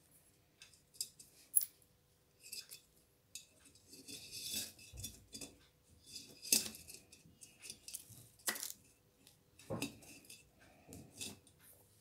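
Irregular light clicks, taps and rustles of hands working a thin wire and small plastic beads, with a few sharper taps along the way.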